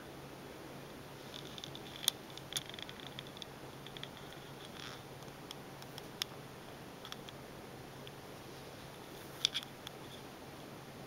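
Quiet small-room tone with a faint steady low hum and a handful of small sharp clicks, the loudest about two seconds in and near the end.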